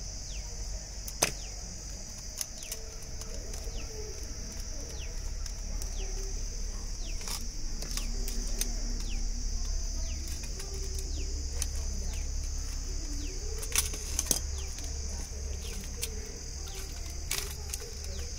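Sharp clicks from pliers and wire work on a plastic switch board: one about a second in, two close together past the middle, one near the end. Under them a steady high-pitched drone and many short falling chirps.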